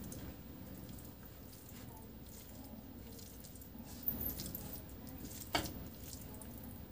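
Fingers mixing and mashing rice with curry on a plastic plate: faint wet squishing, with two short clicks about four and five and a half seconds in.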